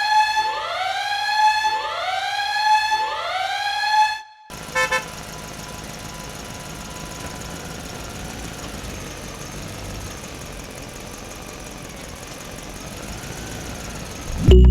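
A siren wailing in repeated rising sweeps, about one every 1.2 seconds, for roughly four seconds. It is followed by a couple of short beeps and then a steady, quieter noisy hum.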